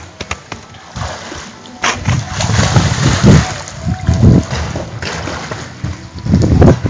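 Pool water splashing from a child's swimming strokes and kicks, in uneven bursts that are loudest a couple of seconds in and again near the end.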